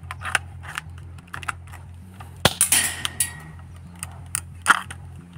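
3D-printed airsoft underbarrel shotgun being handled: a series of sharp plastic clicks as a 12-gauge-style gas shell is loaded and the action worked, then, about two and a half seconds in, one loud pop of the gas shell firing with a short hiss of escaping gas, followed by a few more clicks.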